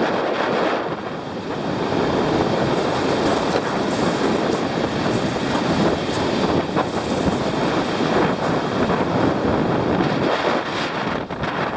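Wind buffeting the microphone together with the rush of surf: a loud, continuous noise that dips briefly about a second in.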